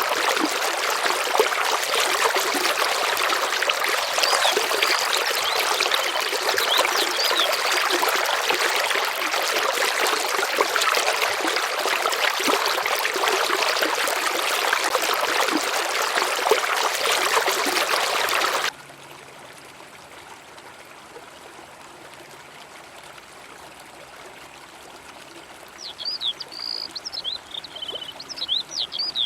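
River water rushing and splashing steadily and loudly, which cuts off abruptly about two-thirds of the way through to a much quieter outdoor background. Near the end a small bird chirps in a quick series of high calls.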